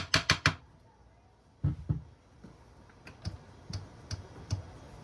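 Hammer tapping on a Honda CRF150R's crankcase to split the case halves: a quick run of taps at the start, two heavier knocks a little under two seconds in, then five lighter, evenly spaced taps.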